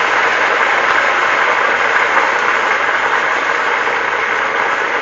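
Pulled pork and mac and cheese from a TV dinner sizzling and bubbling in hot deep-frying grease: a steady, loud hiss.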